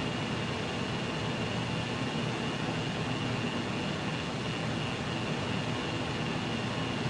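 A steady hum and hiss of background noise, even throughout, with no distinct clicks standing out.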